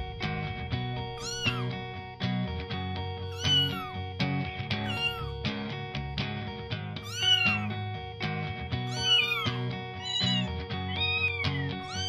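A kitten meowing repeatedly, about six or seven short high meows that each rise and then fall in pitch, over background music.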